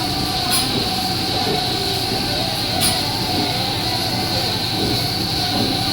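Steady drone of milking-barn machinery, with a high whine running through it. Two short sharp clicks come about half a second in and again near three seconds.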